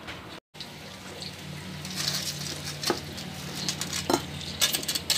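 Fried banana fritters tipped from a wire strainer onto a glass plate: a few short taps and clinks about three and four seconds in and a cluster near the end, over a low steady hum.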